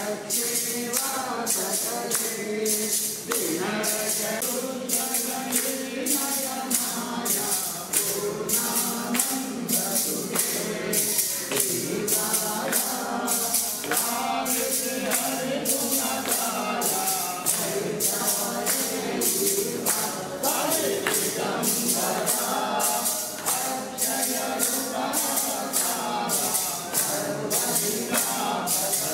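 Group devotional hymn singing in a temple, carried by a steady percussive beat of about two strikes a second.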